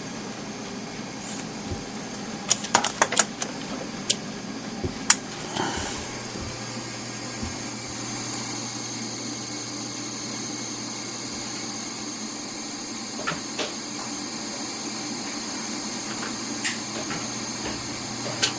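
Stepper motor of a homemade CNC router, coupled to a lead screw, running with a steady hum and whine. A few sharp clicks come about three to five seconds in.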